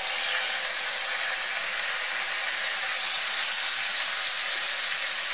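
Hot oil sizzling steadily in a frying pan where a mound of raw ground beef has just gone in beside a sofrito of garlic, peppers and onion, a constant crackling hiss.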